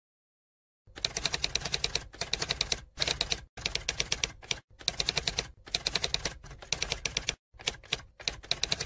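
Typewriter typing sound effect: runs of rapid key clicks, each run about a second long, with short gaps between. The clicks start about a second in.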